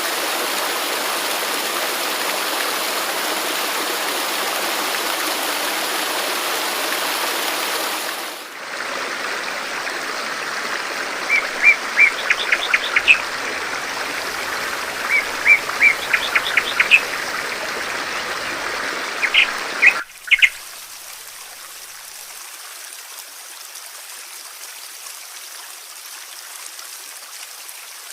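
Steady rushing water that changes abruptly twice, the last part a quieter stream. Over the middle part, small birds chirp in short runs of quick high notes.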